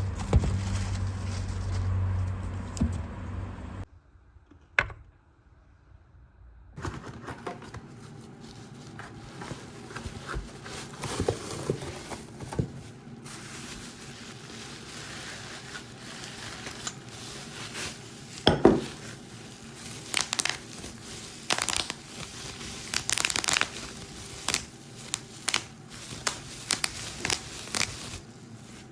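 Crinkling and rustling of packaging, with many sharp clicks and knocks of kitchen items being handled. A low hum in the first four seconds cuts off, followed by a few seconds of near quiet before the crinkling begins.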